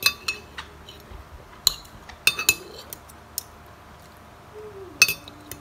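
Cutlery clinking against a plate as someone eats: a few sharp, ringing clinks in short clusters, the loudest near the start and about five seconds in.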